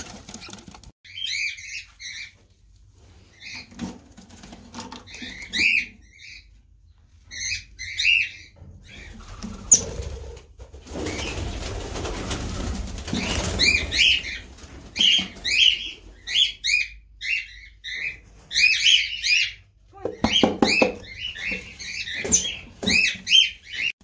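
Cockatiels and a red-rumped parakeet in a small wooden carrier cage calling in short chirps, in quick runs throughout. A few seconds of rustling noise come around the middle, and a short rattle of knocks near the end.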